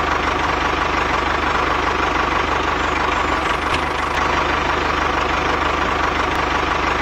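Tractor engine running steadily at idle, with a fast, even chugging.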